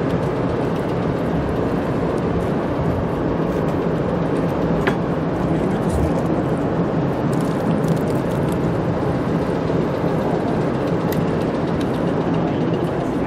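Steady low rumbling background noise that does not change.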